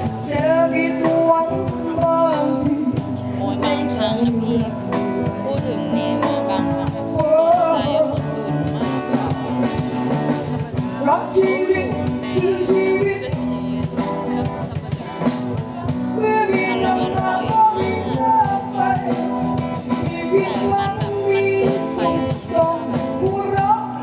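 Live band music with a singer's voice over a drum kit and backing instruments.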